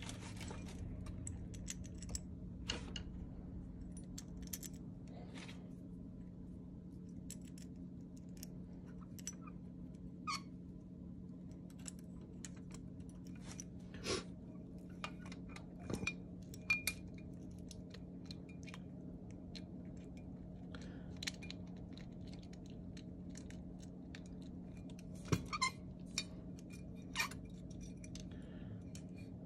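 Small metal carburetor parts and screws clicking and clinking as they are handled and fitted by hand. Scattered sharp clicks, a few louder ones about 14, 16–17 and 25–27 seconds in, over a steady low hum.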